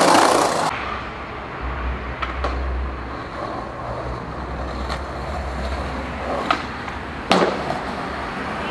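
Skateboard wheels rolling on pavement, cut off sharply less than a second in. Street noise follows with a low, steady vehicle rumble, and one sharp clack about seven seconds in.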